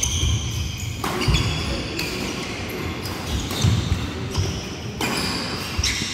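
Badminton doubles rally: rackets strike a nylon Yonex Mavis 350 shuttlecock about once a second, with thuds of players' footwork on the wooden court floor between the shots.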